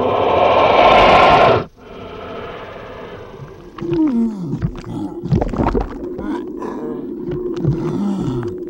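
A woman's loud scream cuts off suddenly about two seconds in. After it comes an underwater soundscape: a steady low tone with whale-like gliding calls that dip and rise, and scattered clicks.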